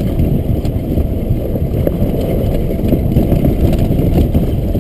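Golf cart riding along: a steady low rumble from the moving cart, mixed with wind buffeting on the microphone.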